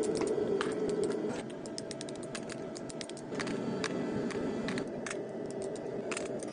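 Workshop noise: a steady machine rumble with many irregular light clicks and taps over it, like small metal parts being handled. It cuts off suddenly at the end.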